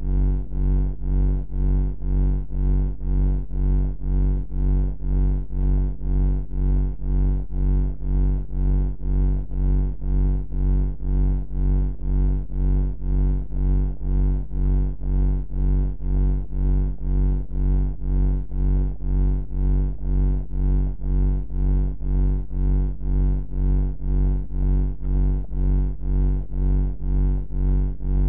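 Deep, steady hum with a stack of overtones, throbbing evenly a little under twice a second: an ambient bunker hum of the kind made for sleep.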